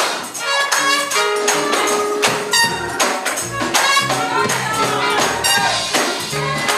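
Live church music: a band playing an upbeat groove, with quick, busy percussive strikes over a moving bass line and pitched instrument notes.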